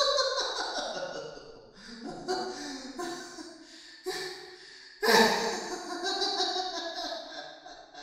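Scary clown laughter performed as a horror sound effect. A laugh trails off, a few short soft chuckles follow, then a loud burst of laughter about five seconds in slowly fades away.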